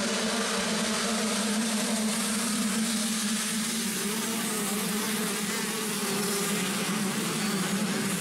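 Motocross bike engines buzzing steadily at a near-constant pitch.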